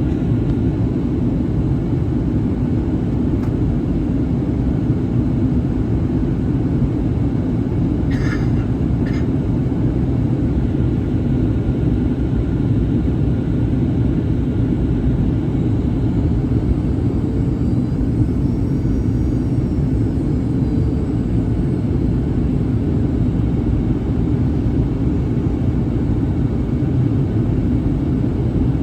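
Steady low rumble of a Boeing 737-800's cabin in flight: the noise of its CFM56-7B turbofans and the air rushing past the fuselage. There are two faint clicks about eight and nine seconds in.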